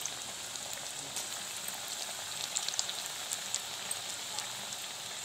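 Jackfruit pakoras in gram-flour batter deep-frying in hot oil in a kadhai: a steady sizzling hiss with scattered small pops and crackles.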